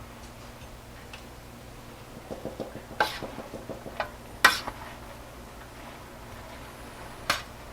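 A utensil clinking and tapping against a cooking pot: a run of light taps, then three sharp clinks spread over the next few seconds.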